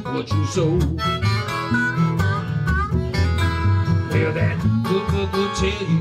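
Country blues instrumental passage: an acoustic guitar is picked in a steady rhythm under a harmonica playing held notes, some bent upward in pitch, over low bass notes.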